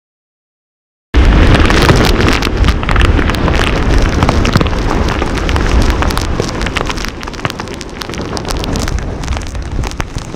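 Storm wind buffeting the microphone over heavy surf breaking on the beach during Superstorm Sandy: a loud, rushing roar with a deep rumble and crackling gusts. It starts abruptly about a second in and eases slowly toward the end.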